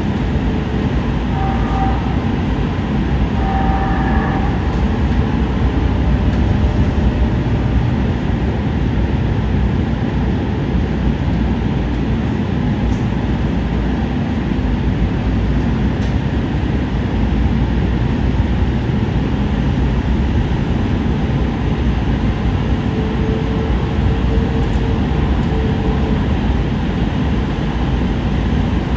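Inside a moving light-rail train: a steady running rumble of wheels on the track and the car's running gear. Faint short tones rise above it a couple of seconds in and again near the end.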